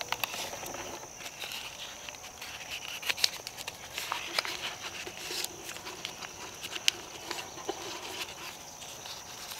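Paper crinkling and rustling in irregular bursts with sharp little clicks, as paper is rolled and twisted by hand into a musket cartridge, over a steady high-pitched hum.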